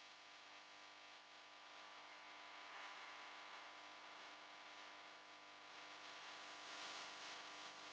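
Near silence: faint steady hiss with a low electrical hum, room tone.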